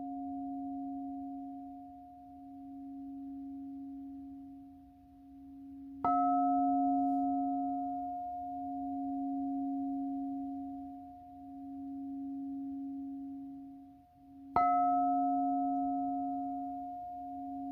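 A singing bowl ringing on, its hum swelling and fading in a slow regular waver. It is struck again twice, about six seconds in and again about fourteen seconds in, and each strike brings back a bright, full ring.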